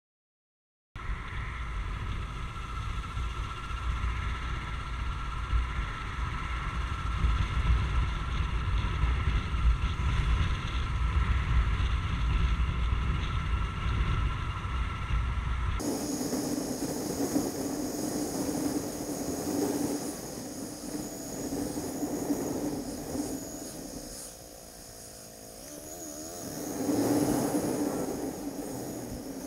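Motorcycle riding at speed, heard from a bike-mounted camera: engine noise mixed with low wind rumble on the microphone, starting about a second in. About halfway the sound changes abruptly to a steadier engine drone with hiss, which falls away briefly and swells again near the end as the throttle eases and opens.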